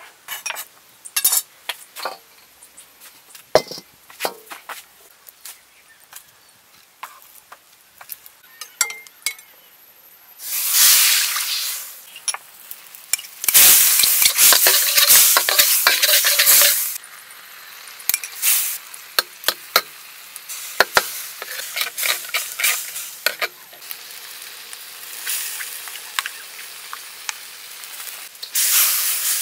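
Scattered sharp knocks and clinks, then a loud burst of sizzling as something goes into a hot steel wok, about ten seconds in, and a louder stretch of frying a few seconds later. After that comes steady sizzling of chili paste frying into a curry base, with a metal spoon clinking and scraping against the wok as it is stirred.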